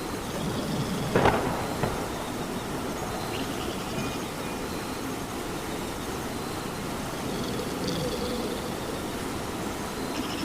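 Steady rain falling, an even hiss, with one sudden sharp crack about a second in.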